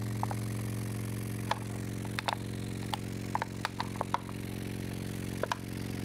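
Subwoofer sounding a steady low hum while cornstarch-and-water liquid (oobleck) is poured onto a plate on its cone. Scattered sharp clicks and small splats come as the liquid lands and spatters on the vibrating cone.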